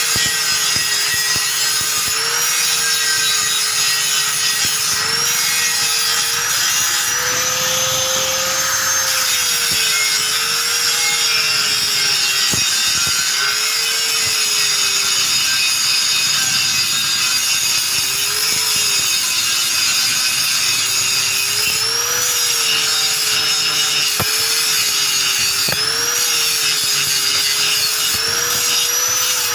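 A homemade coconut grater driven by the electric motor of a used water pump, running with a steady scraping, rasping noise. Its motor hum sags and recovers every two to three seconds as it is loaded and eased off.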